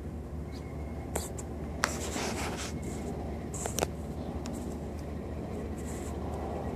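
Close handling noise: a few sharp clicks and some rubbing or scratching over a steady low hum.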